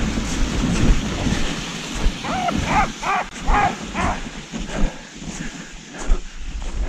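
Sled dogs yelping, a quick run of about six short, bending yelps a couple of seconds in, over a low rumble of wind on the microphone that dies down as the yelps start. Scattered crunching taps follow, like steps in snow.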